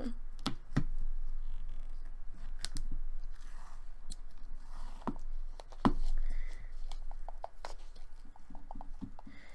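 Fingers pressing and pinching slime topped with a clay layer in a plastic tub, making scattered small clicks and crackles with a few sharper snaps, the loudest about six seconds in.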